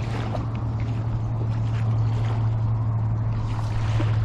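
A steady, unchanging low engine hum with a wash of wind and water noise over it.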